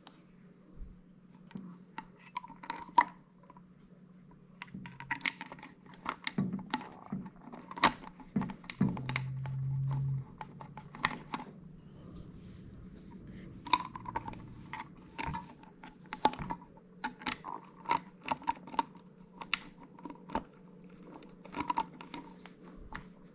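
Scattered small metal clicks and clinks from screws and a screwdriver being handled while the two screws of the dishwasher inlet plate on a garbage disposal are fitted. About nine seconds in there is a brief low steady hum lasting about a second.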